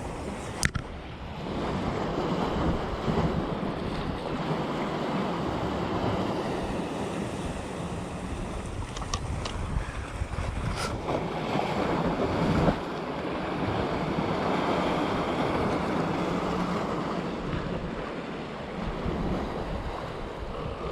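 Sea waves washing against rocks, swelling and easing, with wind buffeting the microphone. A few sharp clicks stand out, the loudest about half a second in and about two-thirds of the way through.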